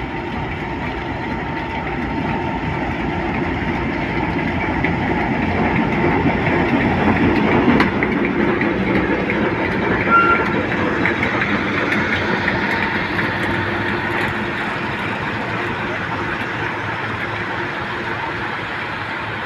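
Preserved diesel shunting locomotive running light engine, its engine getting louder as it approaches, loudest about seven to ten seconds in, then fading as it moves away. A sharp click comes about eight seconds in and a brief squeal about ten seconds in.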